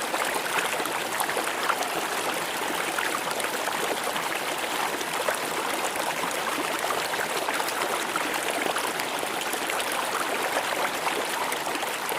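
Stream water flowing and trickling steadily over rocks, with a constant rushing and small splashes.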